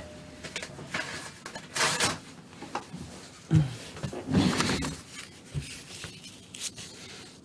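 Hands handling craft materials on a cutting mat: scattered rustles of paper and light knocks as pieces are picked up and moved, with a sharp click at the very start.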